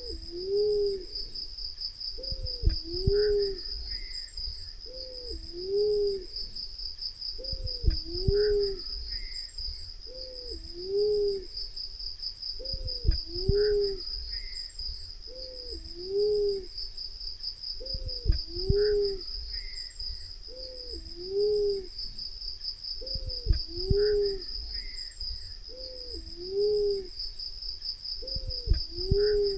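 Black-naped fruit dove calling: a low two-part hoot, a short note then a longer arched one, repeated evenly about every two and a half seconds, over a steady high insect trill.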